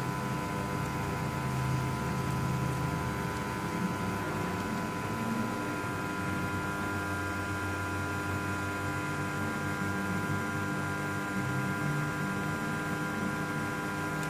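Steady machine hum with several steady whining tones over it and a low rumble that rises and falls.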